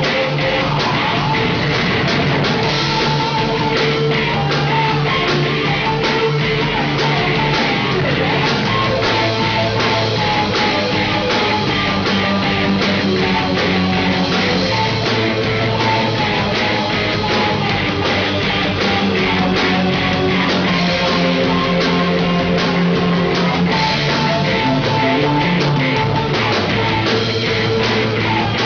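Live rock band playing: electric guitars, an electric bass and a drum kit keeping a steady beat.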